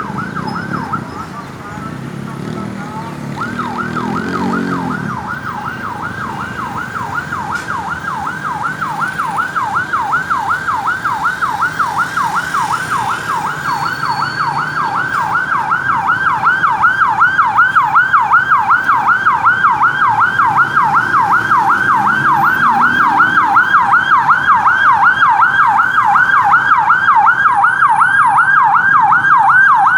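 Ambulance siren in a fast yelp, sweeping up and down about three times a second, starting a few seconds in and growing steadily louder.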